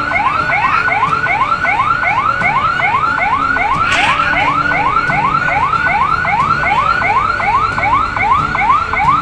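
Vehicle siren in a fast yelp: a rising wail repeating about three times a second without a break, which the scene ties to a Satpol PP patrol car.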